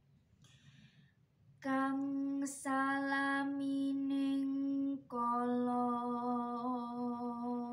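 A solo female voice singing macapat, Javanese sung poetry, unaccompanied. After a short pause she comes in with long held notes, each sustained for several seconds, broken once by a short hissing consonant before a slightly lower note is held on with a slight waver.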